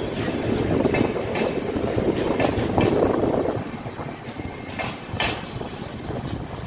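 Indian Railways passenger coaches rolling past on the track, the wheels clattering over rail joints in a run of sharp clicks. The sound is loudest at first and fades in the second half as the rear of the train, a luggage-brake and generator coach, goes by and draws away.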